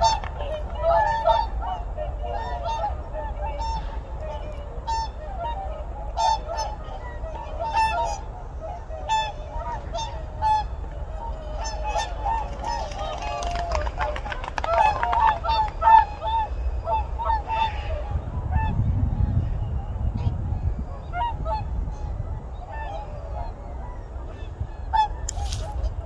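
A flock of swans in flight calling over and over, many honking calls overlapping. The calls come thick for the first half and thin out later, over a low rumble that swells about three quarters of the way in.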